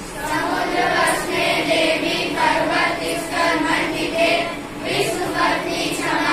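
A group of children singing a prayer together in unison.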